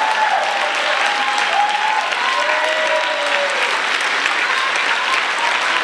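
Audience applauding steadily and loudly, with a few voices calling out and cheering over the clapping in the first couple of seconds.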